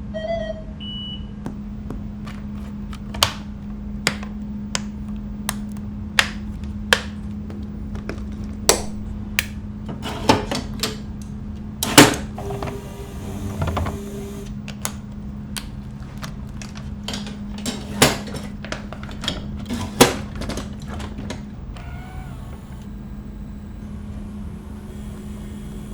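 Dialysis preparation at the bedside: a run of sharp clicks, snaps and taps from medical equipment and supplies being handled, over a steady low machine hum, with a short electronic beep near the start.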